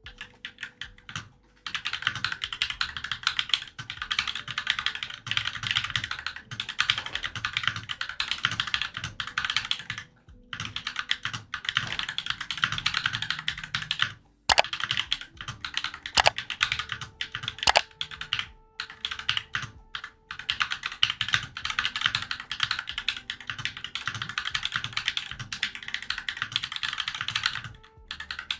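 Fast, continuous typing on a Glorious GMMK 96% mechanical keyboard during a typing-speed test, at about 70 words a minute. It is a dense run of keystroke clicks with a few short pauses and some single louder strokes about halfway through.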